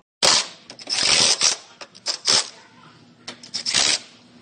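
Cordless impact wrench running in several short bursts, rattling as it hammers, run down onto the bolts of a frame-machine pinch-weld clamp.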